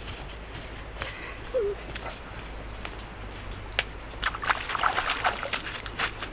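A steady, high-pitched insect drone, with bare feet stepping on wet gravel and splashing in shallow water in the second half.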